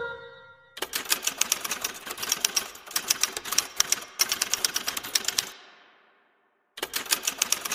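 Rapid typewriter key strikes, a typing sound effect. The typing starts about a second in, pauses briefly around four seconds, tails off after about five and a half seconds, and starts again near the end.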